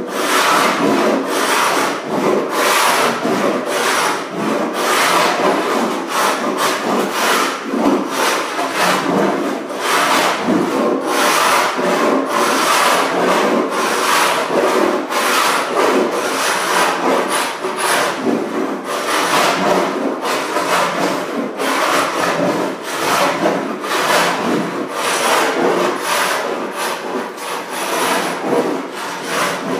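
Hand paint scraper with a carbide blade dragged in quick repeated strokes across an old hardwood floor, rasping off the rough, textured old finish.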